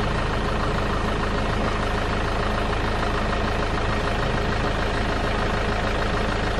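Vehicle engine idling: a steady, even low hum.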